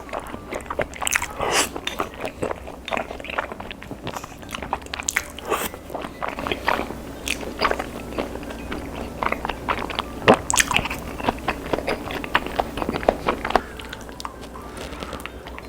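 Close-up crunching and chewing of crispy fried chicken (BHC Bburinkle), a rapid irregular run of crisp bites and crackles that thins out near the end.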